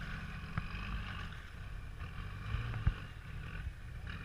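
Toyota LandCruiser 80 Series engine running under load as the four-wheel drive crawls up a muddy rutted slope, a steady low rumble. A single sharp knock about three seconds in.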